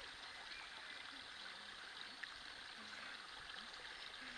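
Faint, steady rushing of flowing water, like a small stream.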